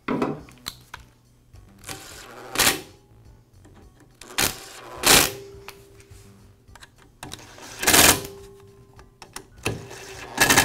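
Cordless drill/driver driving the screws that hold the scroll saw's switch housing, in four short runs a few seconds apart, each building quickly and then stopping.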